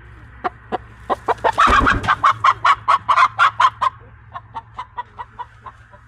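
A chicken clucking in a rapid, even series of about five clucks a second, loudest in the middle and fading off toward the end, with a short loud rush of noise about a second and a half in.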